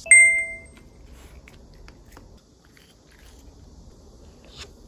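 A single bright bell-like chime right at the start, dying away within about half a second, then faint small clicks and nibbling sounds as a cat takes a treat from a hand.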